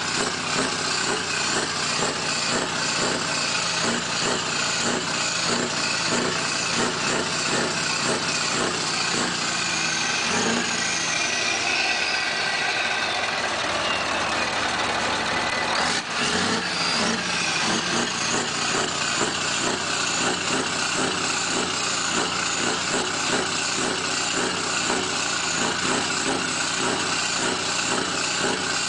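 Scania R620's 16-litre V8 diesel engine running steadily, its firing pulses even. About ten seconds in, a high whine falls in pitch over a few seconds above the engine.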